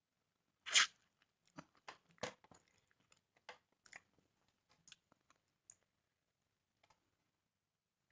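Mouth sounds of eating grilled chicken: a loud bite just under a second in, then irregular chewing clicks that thin out after about six seconds.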